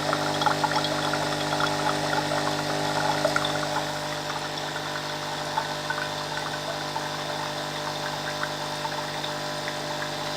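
Nescafe Dolce Gusto Oblo coffee machine's pump running steadily, pushing hot water through the machine so it pours out of the spout, while flushing the machine clean after a vinegar descale. The sound gets a little quieter about four seconds in.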